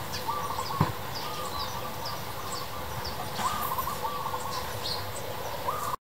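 Birds chirping: many short, high, falling chirps scattered through, with bouts of lower, rapid chattering. A single thump about a second in.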